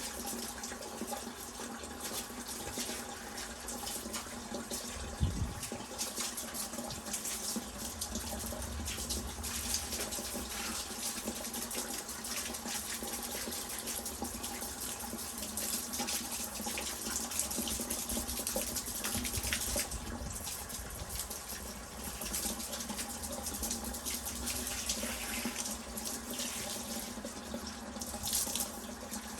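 A pressure washer's water jet hissing steadily as it blasts Indian sandstone paving slabs, with a brief thump about five seconds in.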